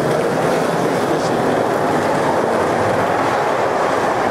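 Skateboard wheels rolling over rough pavement, a steady rattling rumble.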